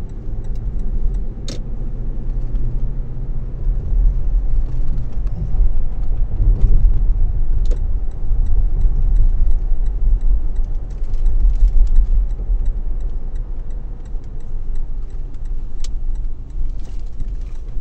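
Low, steady rumble of a moving car's engine and tyres, heard from inside the cabin, with a few brief clicks.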